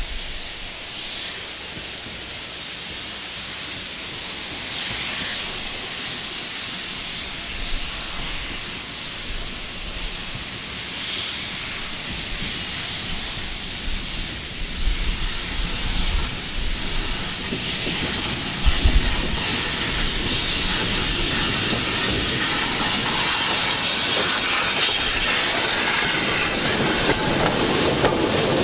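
Steam tank locomotive hauling a short train of wooden goods wagons, approaching and passing close by with a steady hiss of steam that grows louder. A brief thump about two-thirds through; near the end the wagon wheels clatter over the rail joints and points as they go by.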